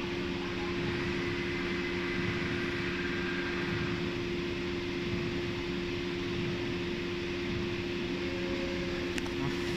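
Steady hum of idling workshop machinery with a constant low tone. A single sharp click near the end.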